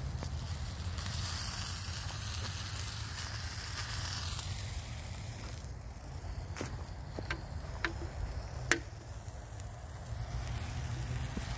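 Sausages sizzling in beer in a small pan over a solid-fuel pocket stove: a steady hiss, with a few sharp clicks in the second half.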